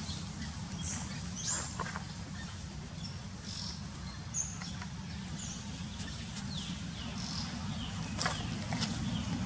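Scattered short, high animal chirps and squeaks over a steady low rumble.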